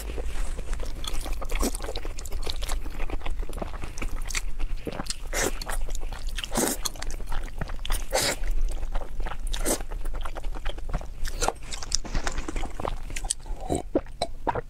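Close-miked eating sounds: a person chewing and slurping sauced noodles, with many short wet mouth clicks and smacks.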